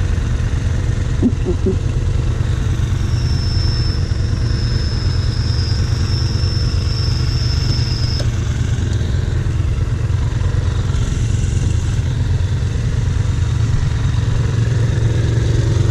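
Quad (ATV) engine idling steadily with a low, even rumble. A thin, high steady whine sounds for several seconds in the middle.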